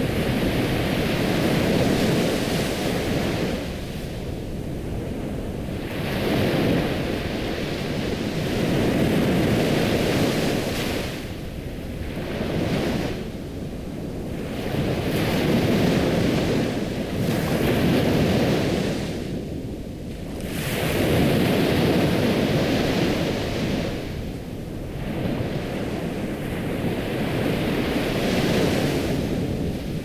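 Ocean surf: waves breaking and washing in, the rush swelling and falling back every few seconds.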